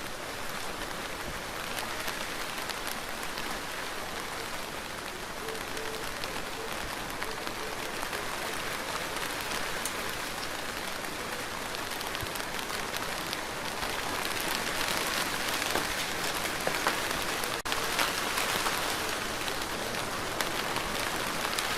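Steady rain falling, a dense patter of drops that grows somewhat louder about two-thirds of the way through, with a split-second dip near the end.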